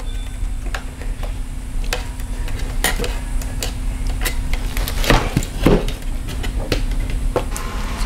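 Scattered light clicks, taps and rattles of wires and plastic parts being handled while cables are fed through a car side-mirror housing, over a steady low hum that stops near the end.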